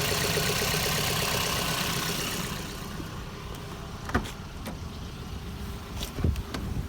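Toyota 2NZ-FE 1.3-litre four-cylinder engine running with the rumbling noise the owner can't identify. He has heard it at high revs and under load, and a mechanic has ruled out the timing chain. The engine noise dies down about two and a half seconds in, leaving a few separate sharp clicks and knocks.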